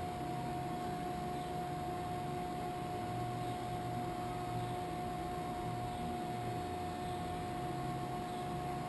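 Kitamura T-20 CNC vertical machining center switched on and standing idle: a steady electrical hum with a constant mid-pitched whine over a low rumble.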